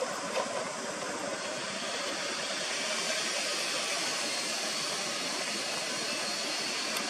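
Steady background hiss, even throughout and strongest in the upper range, with no distinct event.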